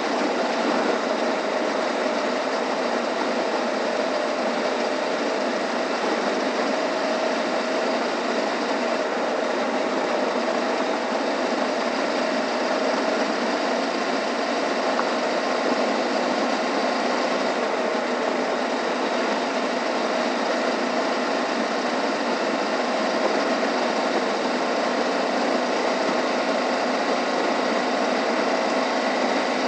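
Suzuki V-Strom 650's V-twin engine running at a steady cruise, mixed with tyre noise on a dirt road and wind rushing past the rider. It is a constant roar with a steady hum and no change in speed or revs.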